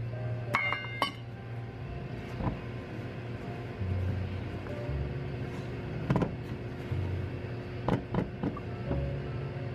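Metal clinks ringing briefly as a sieve or spatula knocks against a stainless steel mixing bowl, then occasional soft knocks and scraping as cocoa flour is folded into cake batter in the bowl. Quiet background music and a low steady hum run underneath.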